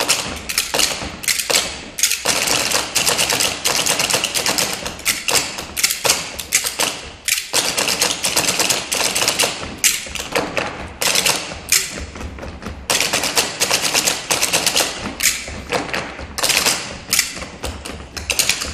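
Ensemble percussion played on a dining table: many quick taps, knocks and clatters of kitchen utensils on the tabletop in a busy rhythm, with a couple of brief breaks.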